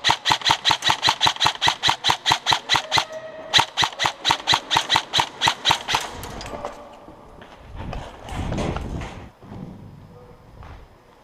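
Airsoft rifle firing fast strings of shots, about seven a second, in two bursts with a short pause between them. It is followed by a low rumbling and scuffing as the wearer moves off.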